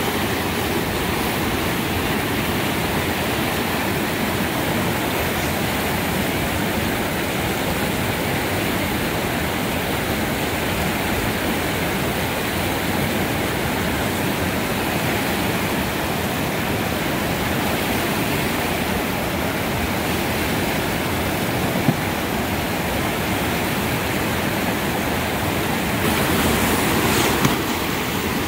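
River whitewater rushing steadily through boulder-strewn rapids, a dense even roar of water, swelling slightly near the end.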